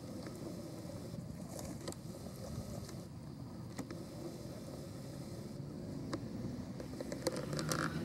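Low, steady rumble of road traffic that grows louder near the end as a car approaches, with a few faint clicks.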